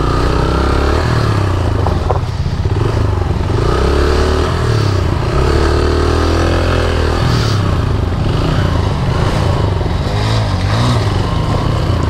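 Motorcycle engine running hard, its revs rising and falling over and over, as on a rough off-road climb.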